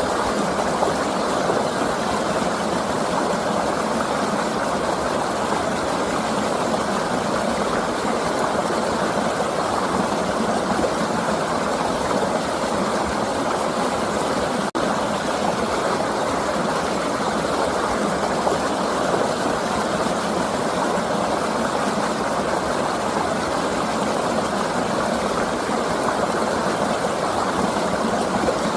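River water flowing steadily, an even rushing noise. There is one brief click about halfway through.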